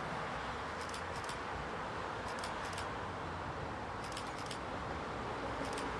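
Steady outdoor background noise with faint, light ticks that come in pairs about every second and a half.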